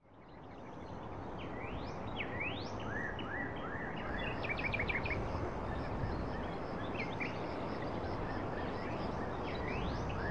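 Several birds calling over steady outdoor background noise: repeated short rising whistled notes, with a quick run of short chirps about four to five seconds in. The sound fades up from silence at the start.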